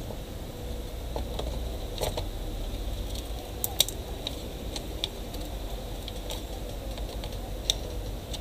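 Scattered small clicks and taps of a 2.5-inch laptop hard drive being fitted into its bay and the laptop's plastic case being handled, over a low steady hum.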